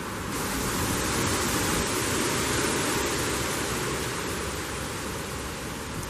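Wind gusting through trees and rustling autumn leaves in a steady rush; the gust swells about half a second in and eases toward the end.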